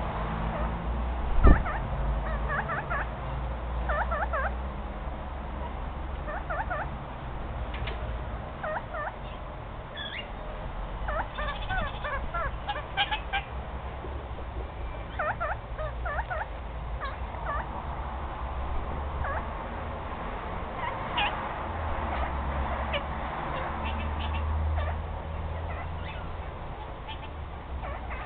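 Kakariki parakeet chattering in short clusters of squeaky chirps, again and again, as it rummages in a fleece jacket pocket. A steady low rumble runs underneath, and there is a single sharp thump about a second and a half in.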